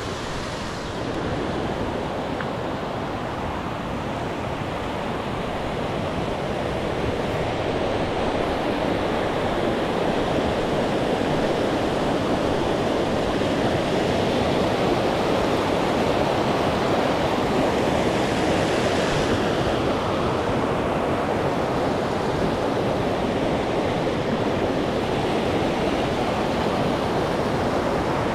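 Rushing water of a mountain stream or falls: a steady, even roar that grows louder over the first half and then holds.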